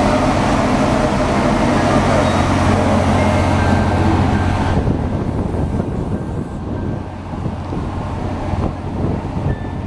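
Steady low mechanical hum with a loud rushing noise over it; the rush eases about five seconds in.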